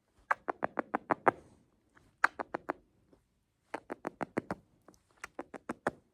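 Sharp taps or clicks in four quick runs of about four to seven strokes each, roughly six a second, with short pauses between the runs.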